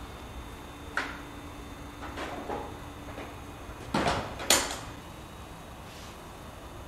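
Several separate knocks and clunks, the loudest two close together about four seconds in, with a faint hum for a couple of seconds after the first knock.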